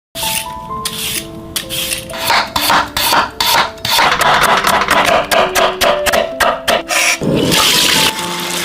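Rapid rasping strokes of kitchen food preparation, about four a second, stopping about seven seconds in, over light background music with a plucked melody.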